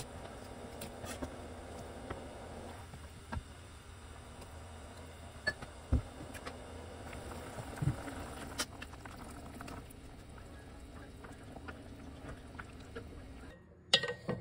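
Stew simmering in an earthenware pot: a steady soft bubbling. A few light clicks run through it, and there is a sharp knock near the end.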